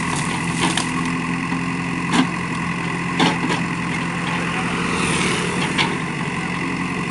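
JCB backhoe loader's diesel engine running steadily while the backhoe bucket tears out woody roadside brush, with about five sharp cracks and knocks as branches break and the bucket strikes. There is a rustling swish of dragged brush about five seconds in.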